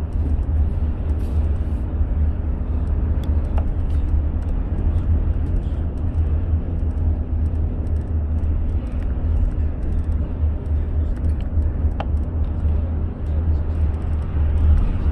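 A car driving at speed on an expressway: steady, heavy low road and engine rumble with tyre noise.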